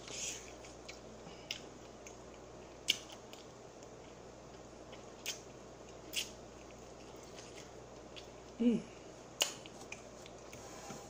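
Eating sounds from a fried chicken drumstick: a few sparse, sharp wet mouth clicks and lip smacks as meat is sucked and chewed off the bone, with a brief hummed sound a little before the last click.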